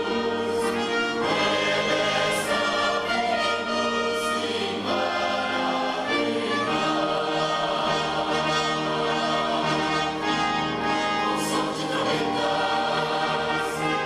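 Large mixed choir singing with a string orchestra accompanying, holding sustained chords that change every few seconds.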